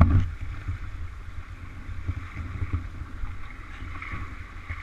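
Steady rush of river water flowing through a ford, with wind buffeting the microphone. A brief loud rumble of handling noise comes right at the start.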